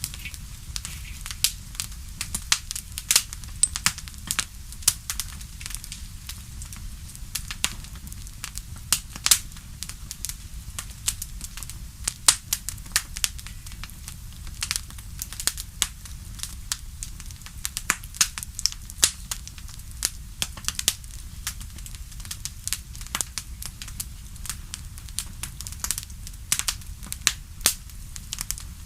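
Fire crackling in a fireplace: frequent irregular sharp snaps and pops over a steady low rumble.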